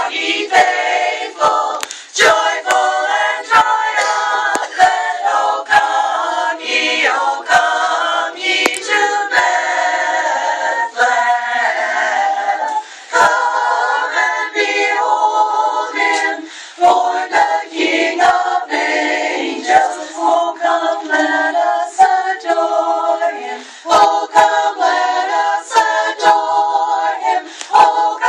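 Women's chorus singing a cappella, phrase after phrase with no instruments.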